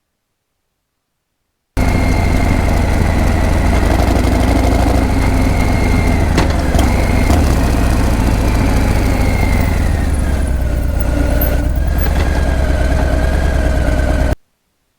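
Harley-Davidson Breakout's V-twin engine and exhaust running steadily at low revs. The sound cuts in abruptly about two seconds in and cuts off shortly before the end.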